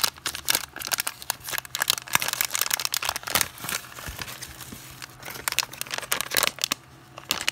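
Plastic packaging crinkling and rustling as clear and white plastic bags are handled and opened by hand. The crackles come thick and irregular, busiest in the first few seconds, lighter in the middle and picking up again near the end.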